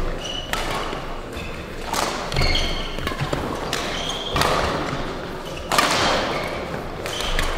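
Badminton rally: a shuttlecock struck back and forth by rackets, several sharp hits about every one to two seconds, each echoing in a large hall. Short high squeaks between the hits come from players' shoes on the court floor.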